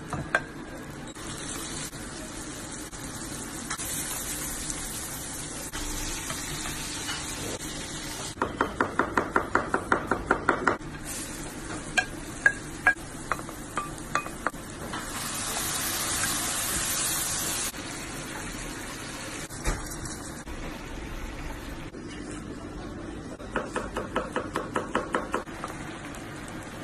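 Shrimp, garlic and onion sizzling in butter in a frying pan. Twice, a run of quick, even knocks, about four a second for two seconds or so, cuts through the sizzle, with a few single clinks between.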